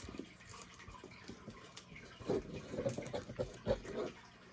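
Faint rustling and soft clicks of trading cards being handled and sorted, busiest about halfway through.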